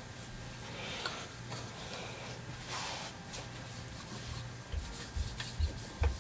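A cloth rag rubbing oil over the outside of a lever-action rifle, giving soft, irregular scrubbing swishes. A few low bumps from the gun being handled come near the end.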